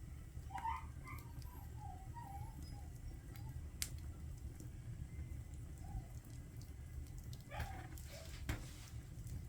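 Firewood crackling and popping in a traditional furnace over a steady low rumble, with a sharp pop about four seconds in and a cluster of crackles near the end. A bird calls in short chirps during the first few seconds, and once more later.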